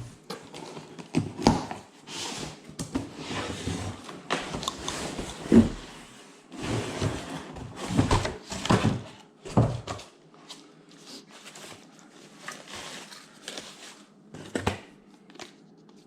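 Shipping box and its foam packing being rummaged through by hand: irregular rustling, scraping and knocks, busy for about ten seconds, then a few scattered soft taps and a knock near the end.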